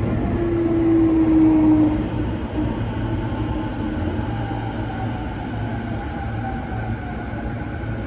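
Interior of a Toei Shinjuku Line subway train running into a station: a steady low rumble of the car on the rails, with a whine that falls in pitch in the first couple of seconds as the train slows for its stop.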